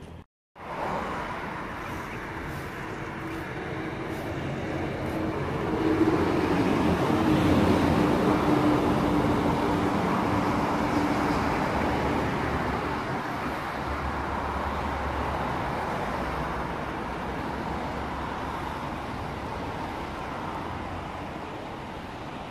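Engine noise of a passing motor vehicle, swelling about six seconds in and slowly fading, with a steady hum.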